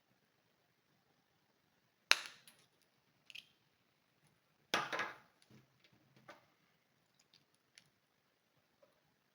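Small hand tools being handled: a sharp snap about two seconds in, a smaller click, then a louder clatter about five seconds in, followed by a few light ticks.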